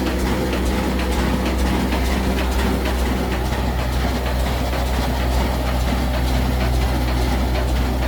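Old black diesel engine (desi 'kala engine', about 22 HP) running steadily with a low, even hum, driving an atta chakki flour mill.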